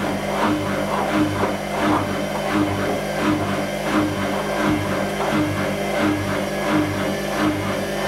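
Whirlpool Indiana 1400 front-loading washing machine with its drum turning and the laundry tumbling inside. It makes a steady motor hum with a regular swishing swell about every 0.7 s.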